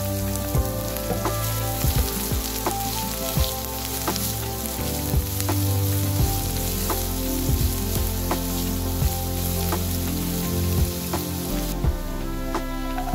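Chopped onion frying in oil in a non-stick pan, sizzling steadily while a spatula stirs it, with sharp ticks now and then.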